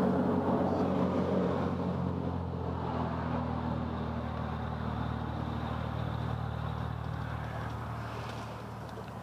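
A vehicle engine running steadily, growing fainter over the few seconds as it moves away or dies down.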